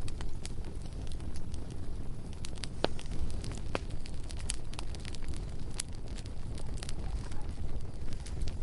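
Bonfire burning: frequent sharp, irregular crackles and pops over a steady low rumble of the flames.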